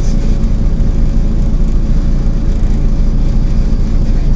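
Volvo B7TL double-decker bus's six-cylinder diesel engine and drivetrain running, heard inside the passenger cabin while riding: a steady low rumble with a thin, steady whine above it.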